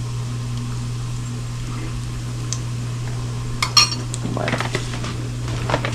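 A metal spoon clinks sharply against a small glass mug a little past halfway, then scrapes and rattles in it for about a second, stirring sweetener in. A steady low hum runs underneath.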